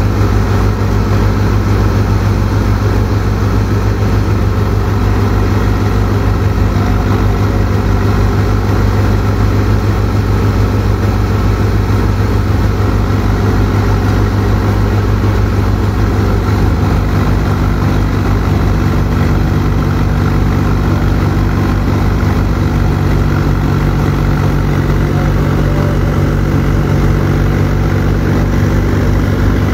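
Swaraj 735 FE tractor's three-cylinder diesel engine running steadily under load, powering a wheat thresher as sheaves are fed into it. A continuous loud, even drone with a fast regular beat.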